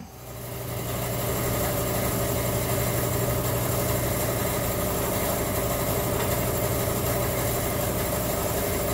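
A motor-driven machine starts up and runs steadily, with a low hum and a hiss over it.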